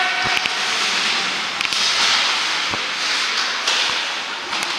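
Ice hockey play: skates scraping and hissing on the ice, with a handful of sharp clacks of sticks hitting the puck and ice.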